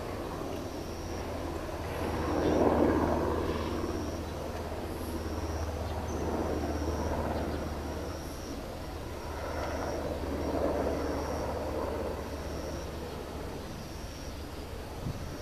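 Outdoor ambience with a distant engine rumble that swells and fades twice, over a steady low hum. A short high chirp repeats about once a second throughout.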